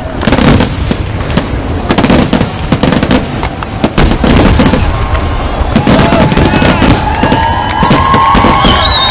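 Fireworks display with aerial shells bursting in quick, overlapping succession, loud and continuous. From about six seconds in, high wavering whistling tones join the bangs.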